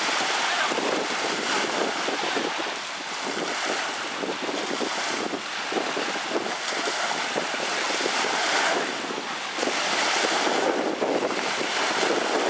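Small lake waves washing and splashing, with wind rushing on the microphone; water splashes as a black Labrador plunges in at the start, then the waves and wind go on as it swims.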